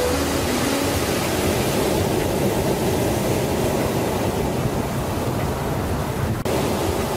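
Ocean surf on a sandy beach: a steady wash of breaking waves. The last few notes of background music die away in the first second.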